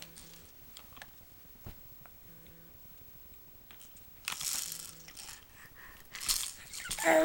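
A baby's mouth noises between bouts of babbling: a few small clicks, then two breathy, spluttering bursts about four and six seconds in, and the start of a voiced babble at the very end.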